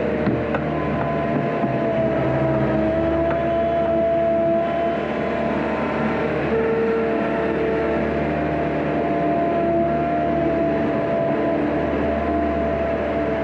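Engine of a farm loader running steadily under light load, with a steady whine held through it that wavers slightly in pitch now and then.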